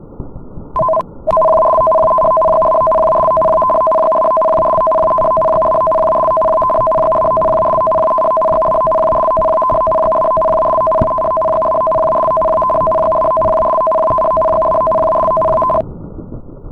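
Emergency alert attention signal: two steady tones sounding together, a short blip about a second in, then held unbroken for about fourteen seconds before cutting off suddenly, over a low rumble.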